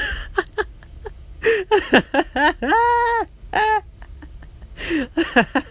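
A person's wordless, high-pitched vocal whining: a few short sounds, one long held whine about three seconds in, then more short ones near the end. It is an exasperated reaction to clumsy wording.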